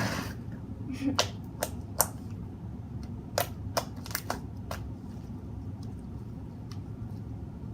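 Slime being kneaded and stretched by hand after soap has been worked in, giving a scatter of sharp sticky clicks and pops, most of them in the first five seconds, over a steady low hum.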